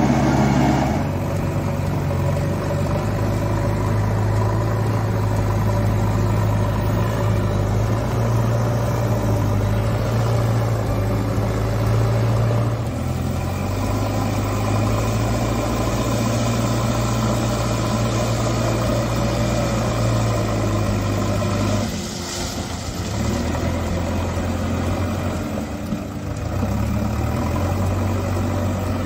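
Diesel engine of a Dynapac double-drum roller running steadily. About halfway through, it gives way to a JCB backhoe loader's diesel engine running as the loader pushes gravel. The engine sound dips in level about three-quarters of the way through.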